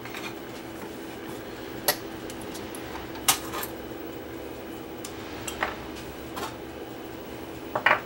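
A handful of sharp metallic clinks and taps, spread a second or two apart, as metal parts and the tape control lever of an open reel-to-reel video recorder deck are handled. A steady low hum runs underneath.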